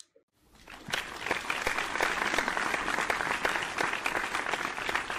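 A crowd applauding, many hands clapping: it fades in about half a second in and then holds steady.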